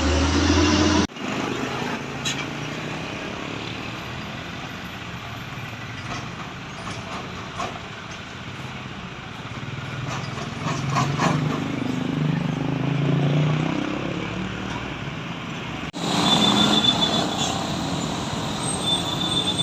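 Road traffic with heavy vehicles passing. A low engine hum swells in the middle, and the sound changes abruptly about a second in and again near the end.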